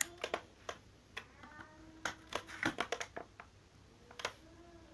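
Irregular sharp clicks and taps from an opened LCD TV, bunching into a quick run about halfway through. Faint high-pitched cries can be heard in the background.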